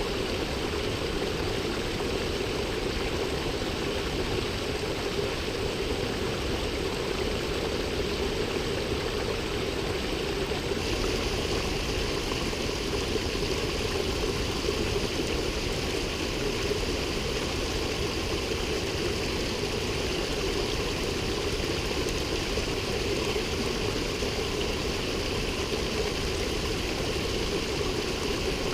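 Steady rushing of a mountain river and waterfall, an even noise with no break. About eleven seconds in the sound turns brighter and hissier.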